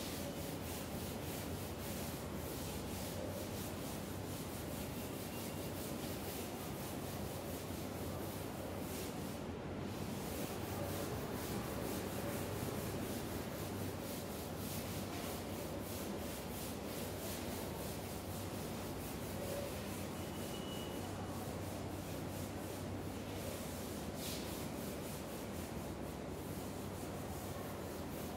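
A duster rubbing across a chalkboard in repeated back-and-forth strokes, wiping chalk writing off the board.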